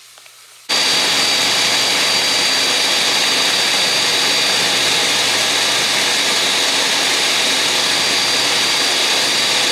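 Countertop blender running at high speed, puréeing soaked dried chiles into a sauce. It starts suddenly about a second in and then runs steadily and loudly, with a high motor whine over the rush of the blades.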